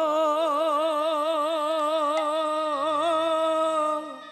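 Kirtan singer holding one long sung note with a strong, even vibrato over steady sustained accompanying notes; the held note ends about four seconds in.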